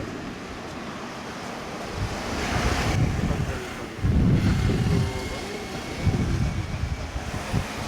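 Wind buffeting the microphone in irregular low gusts over a steady outdoor hiss.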